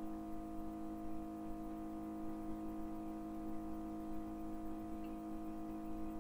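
A steady hum made of several held tones over a faint low rumble, unchanging throughout, with no other clear event.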